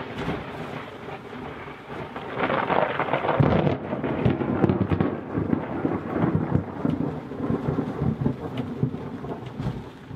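Heavy rain drumming on an aluminium sailboat's deck, heard from inside the cabin, with deep rumbling swells in the noise, loudest a few seconds in.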